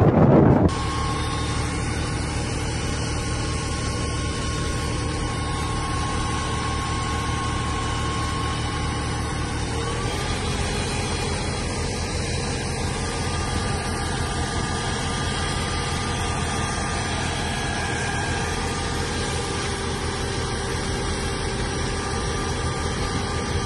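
Fire truck engine idling, a steady hum with several steady tones over it; the low part of the hum shifts slightly about ten seconds in. A brief rush of wind on the microphone opens it.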